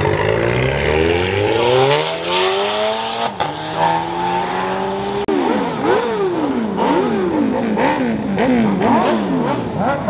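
Engines being revved hard. First one engine's note climbs steadily for about three seconds as it accelerates. From about five seconds in come quick repeated rev blips, the pitch rising and falling about once a second.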